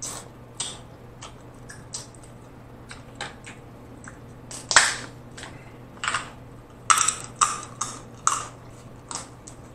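Snow crab legs being cracked and picked apart by hand, with a scattered series of short, sharp shell snaps and clicks and wet eating sounds. The loudest crack comes about five seconds in, and a quick run of them follows between about seven and eight and a half seconds.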